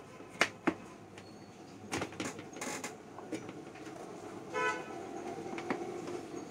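Several sharp plastic-and-metal clicks and knocks as the stainless steel wire stands of a plastic dish rack are set into the seating holes of its lower tray. A short horn toot sounds about halfway through.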